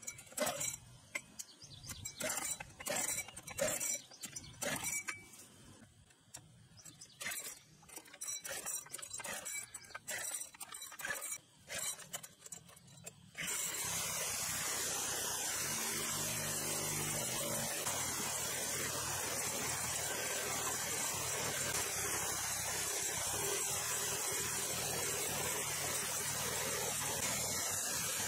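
Scattered clicks and knocks of hands handling a small gasoline engine water pump. About halfway through, a sudden switch to a steady, loud rush of water gushing from the pump's outlet pipe onto a flooded field.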